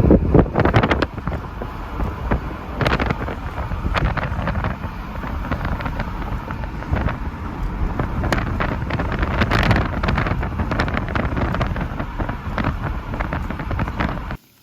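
Moving car heard from inside: a steady low road rumble with wind buffeting the microphone and scattered small knocks and clicks. It cuts off suddenly near the end.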